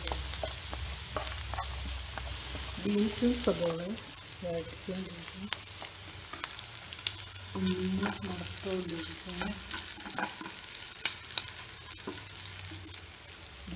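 Food sizzling in hot oil in a frying pan as it is stir-fried with a wooden spatula, with frequent sharp scrapes and taps of the spatula against the pan.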